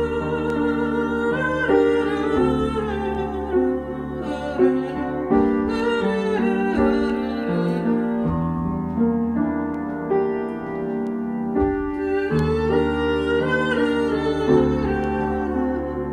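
Upright piano played with both hands, with a woman's voice singing a melody over it in places.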